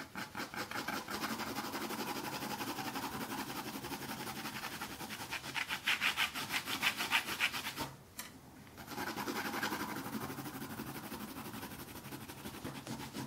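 Brown watercolour pencil scratching across textured watercolour paper in rapid back-and-forth hatching strokes. The strokes get louder around six to seven seconds in, stop for about a second just after eight seconds, then carry on.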